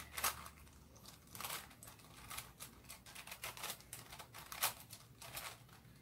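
Plastic clicks and clacks of a budget 4x4 Rubik's cube as its layers are turned by hand, in an irregular run of quick turns.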